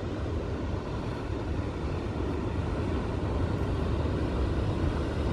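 Wind buffeting the microphone on an exposed clifftop: a steady low rumbling rush.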